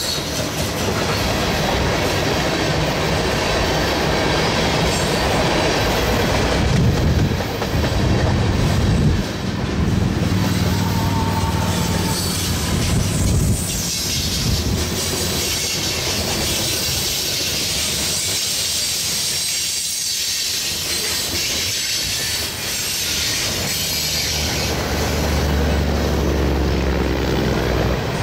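Freight train cars (tank cars, covered hoppers, then open-top gondolas) rolling past close by: a steady rumble and clatter of steel wheels on the rails.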